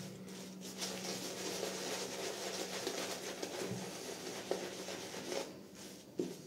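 Synthetic shaving brush worked in strokes over a lathered face and beard, making a soft, steady swishing of bristles through shaving lather that dies down about five and a half seconds in.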